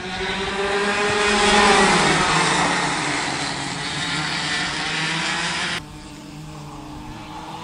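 Several go-kart engines racing past, their tone falling in pitch as the pack goes by. About six seconds in the sound cuts abruptly to a single, quieter kart engine running steadily.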